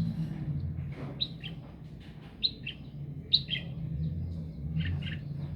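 Small bird chirping: four short pairs of high, falling notes about a second apart, over a faint low hum.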